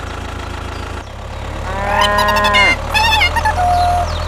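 A cow moos once, long and dropping in pitch at the end, about two seconds in, and a shorter wavering animal call follows it. Under both runs a steady low tractor-engine hum.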